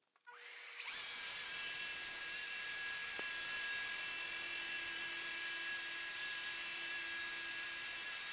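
Plunge-cut track saw ripping a full sheet of plywood along its guide rail, with its hose-connected dust extractor running. The saw starts up in the first second, then runs steadily through the long cut.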